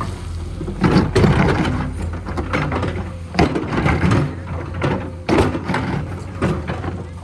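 Heavy road-construction machine's engine running steadily, with irregular metallic clanks and scrapes.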